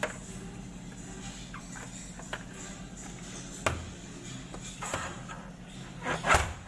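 Background music under a steady low hum, with a sharp knock about two thirds of the way in and a louder clatter near the end.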